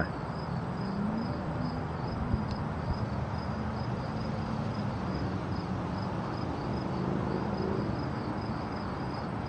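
Crickets chirping steadily, about three high chirps a second, over a steady background hiss.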